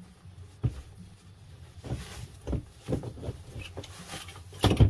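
A thin plastic bag rustling and crinkling while a coiled airbrush air hose with a moisture-trap fitting is pulled out of it, in irregular handling noises that grow louder near the end.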